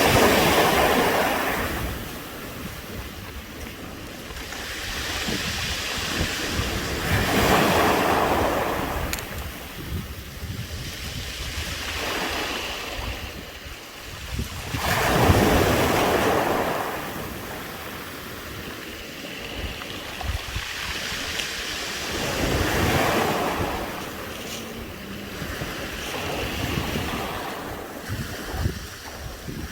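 Waves washing up a round-pebble beach and drawing back through the stones, the pebbles rattling and clinking in the backwash. The surges come about every seven to eight seconds, four times in all, with some wind on the microphone.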